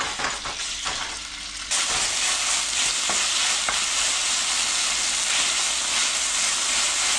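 Marinated beef strips frying in hot oil in a nonstick pan, with a steady sizzle as they are stirred with a wooden spatula. The sizzle starts with a few knocks as the meat goes in and jumps suddenly louder a little under two seconds in.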